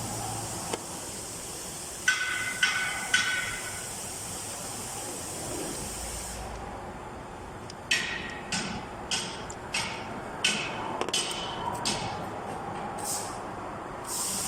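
Metal parts and hand tools clinking and tapping during work on a car engine. Three ringing clinks come about two seconds in, then a run of about nine sharp taps later on, over a steady hiss.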